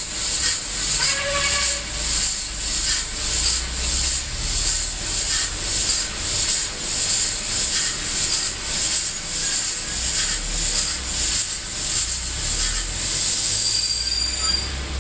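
PIKO N-scale DB class 82 model steam locomotive's sound decoder playing a rhythmic steam-exhaust chuff through the model's small speaker, a repeating hiss in step with the turning wheels.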